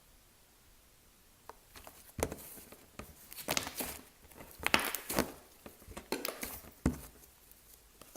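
Fluffy bubblegum slime, made from PVA glue, shaving cream and borax activator, being squished and stretched by hand for ASMR. It gives irregular bursts of sticky clicks and pops after a quiet first second and a half.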